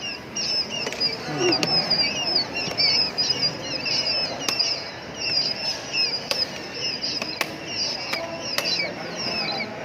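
Small birds chirping continuously in rapid, high-pitched notes, with several sharp clicks scattered through.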